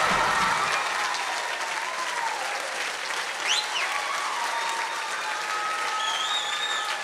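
Audience applauding and cheering at the end of a dance routine, the backing music stopping in the first second.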